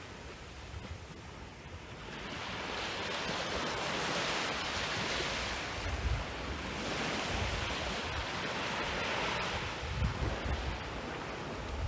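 Small, gentle Caribbean waves breaking and washing up the sand, the surf swelling from about two seconds in and again later on. Low buffeting from wind on the microphone, strongest near the end.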